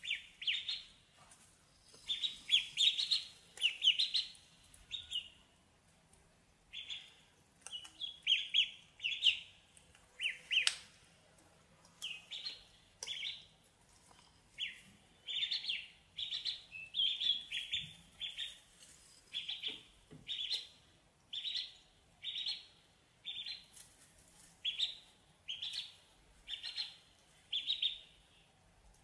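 Ducklings peeping: short, high chirps coming in quick clusters over and over, with a few faint clicks among them.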